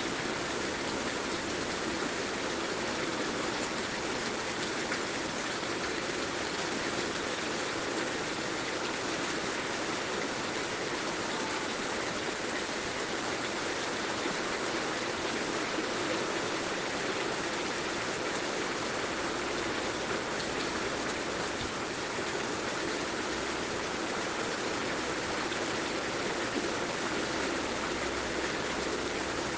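Steady heavy rain falling with an even, unbroken hiss.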